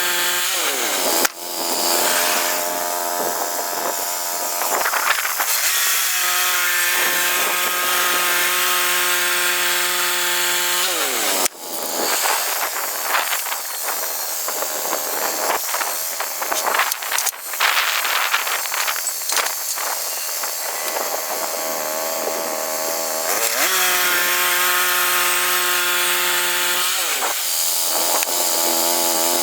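Woodland Mills HM122 bandsaw sawmill running, its gas engine driving the blade through a log with a steady sawing rasp. The engine pitch glides up or down several times, and the sound drops out sharply for an instant twice.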